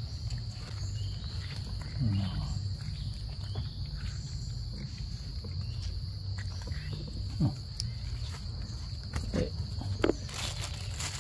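Long-tailed macaques giving a handful of short, separate calls, some sliding up in pitch, over a steady high drone of forest insects.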